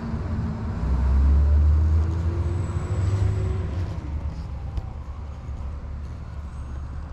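Low rumble of a motor vehicle, swelling about a second in and fading toward the end, with a faint rising whine in the middle.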